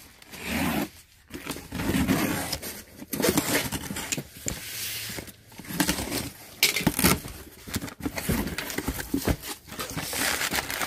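Box cutter slicing through the packing tape on a cardboard box, a run of irregular tearing and scraping strokes, with the cardboard flaps being pulled open near the end.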